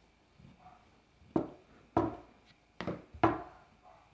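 Rolling pin knocking and rolling on the work surface as fondant is rolled out thick, four sharp knocks at uneven spacing with soft rolling noise between.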